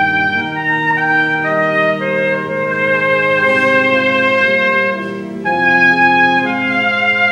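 Piccolo trumpet playing a slow melody of held notes over sustained organ chords.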